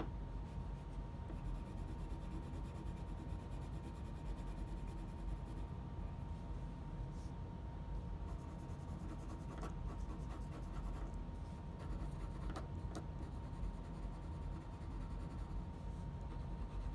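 Pencil scratching on paper in short strokes as a drawing is sketched, over a steady low hum and a faint steady tone.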